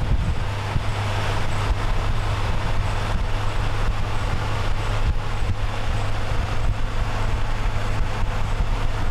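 Steady low vehicle rumble with a continuous haze of road noise.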